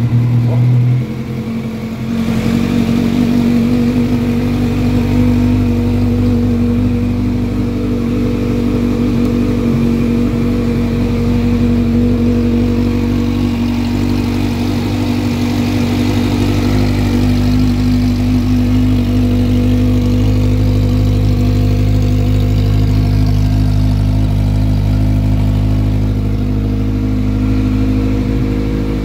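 Kawasaki Z1000 inline-four engine through an aftermarket Hurricane Evolution exhaust, just cold-started: a louder surge in the first second, then a steady, loud idle with no revving.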